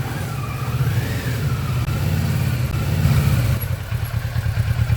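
Kawasaki Versys 650's parallel-twin engine running as the motorcycle is ridden, a steady low engine note.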